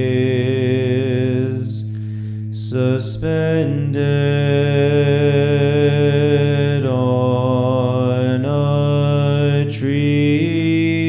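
Byzantine chant: a man's voice sings a slow hymn melody of long held notes that step up and down, over a steady low held drone (ison). About two seconds in the melody breaks off briefly for a breath while the drone carries on.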